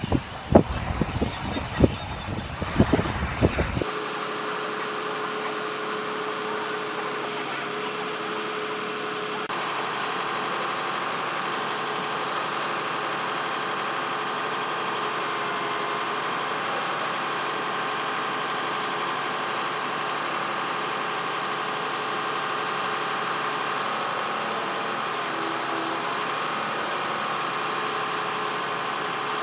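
Irregular gusty buffeting and thumps for about four seconds, then an engine running steadily with a constant hum.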